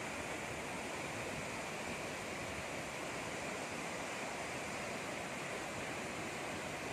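Steady, unbroken rush of falling water from Hudru Falls, a waterfall on the Subarnarekha River that drops about 98 metres.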